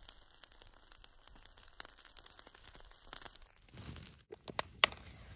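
Wood fire crackling faintly with scattered small pops, then a few sharper, louder clicks near the end.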